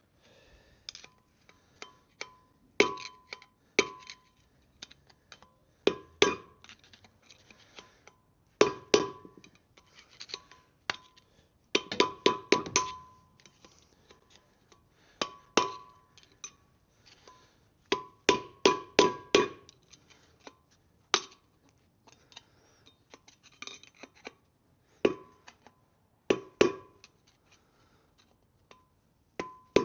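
Hammer driving a screwdriver, used as a drift, against the bearing races inside a Land Rover Defender 90 wheel hub to knock them out: sharp metallic strikes in irregular bursts of a few blows, each ringing briefly.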